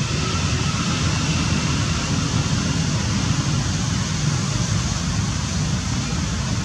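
Steady outdoor background noise: a low, fluttering rumble with an even hiss over it, and no distinct events.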